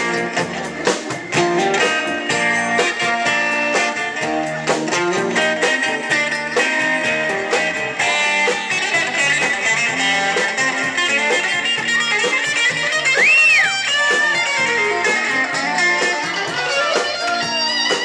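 Live blues-rock band: an electric guitar plays a lead line over bass and drums, with bent notes that rise and fall about two-thirds of the way through.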